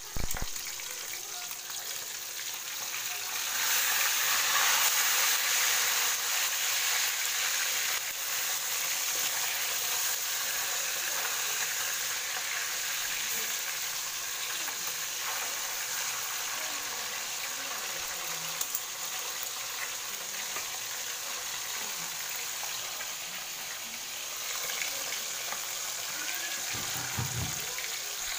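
Tilapia frying in hot oil in a wok: a steady sizzle that grows louder for a few seconds about four seconds in.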